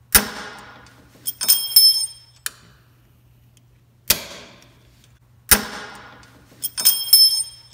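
Steel needle-nose pliers working a rear drum-brake spring clip: sharp metallic snaps three times, and two short spells of bell-like ringing pings from the spring steel and brake hardware as the clip is squeezed and slips.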